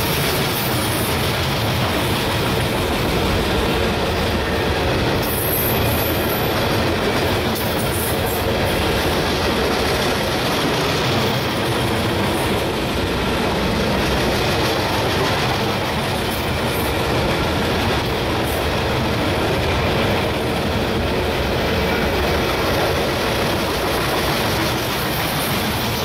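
Loaded coal hopper cars of a freight train rolling steadily past, a continuous heavy noise of steel wheels on rail, with a brief high wheel squeal about five seconds in.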